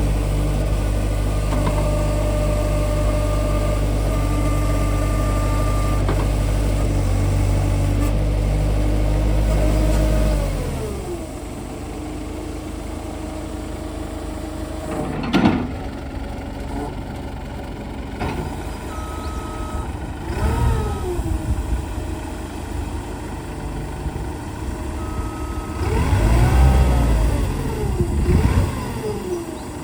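New Holland 555E loader backhoe's diesel engine running steadily at high revs, then winding down to idle about ten seconds in. Later the engine note dips and rises a few times, with a single clank in between.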